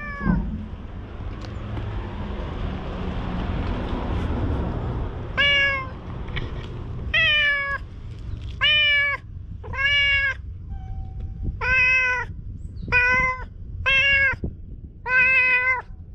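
Domestic cat meowing repeatedly: about eight clear, drawn-out meows from about five seconds in, each a steady pitched call about a second apart. Before them, a steady rushing noise.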